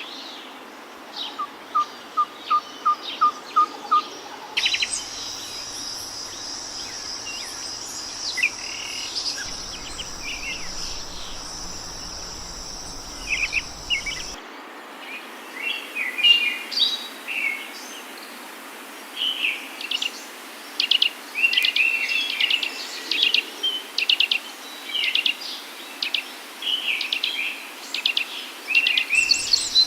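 Wild birds singing and chirping. Near the start one bird gives a run of about eight evenly spaced notes. A steady high buzz sounds under scattered chirps from about five seconds in until about fourteen seconds. After that comes busy, quick chirping.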